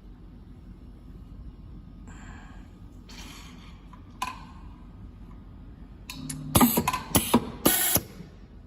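Mechanical clicking and clacking from a semi-automatic soldering machine being adjusted by hand. It starts with light scrapes and a single click, then a quick cluster of loud clicks and short clattering bursts about six seconds in.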